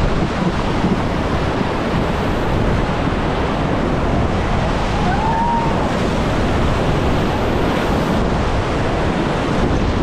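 Whitewater of a river rapid rushing and splashing around an inflatable raft, loud and steady, with wind buffeting the microphone.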